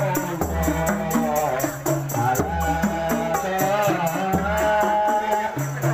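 Islamic devotional singing (sholawat) with rebana frame drums and jingles keeping a steady, quick beat.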